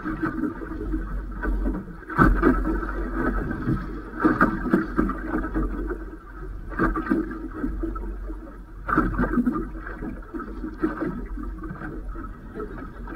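Waves slapping and sloshing against a fibreglass boat hull, swelling every two seconds or so over a steady low rumble.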